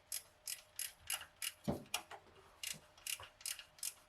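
Socket ratchet clicking about three times a second as it is swung back and forth, backing out an old, dirty exhaust manifold bolt.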